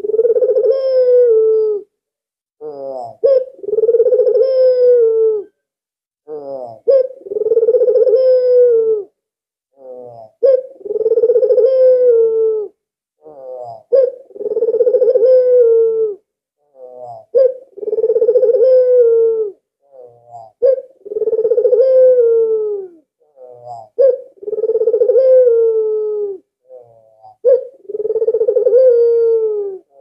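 Albino (white) Barbary dove, the ringneck dove called puter, cooing over and over. Each phrase opens with a few quick short notes and ends in a long, steady coo, about one phrase every three and a half seconds, nine times in all.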